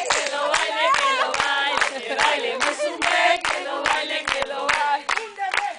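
A group of women singing together in chorus, with a quick beat of sharp hits, about three a second, running under the singing.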